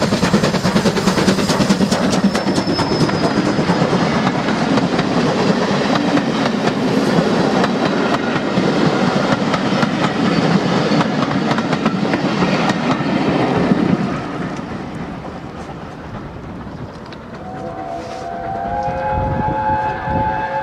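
Steam locomotive working hard as it passes hauling a train of coaches, with its exhaust and wheels clattering over rail joints, fading away about fourteen seconds in. Near the end a steam whistle sounds a steady chord of several notes for a few seconds.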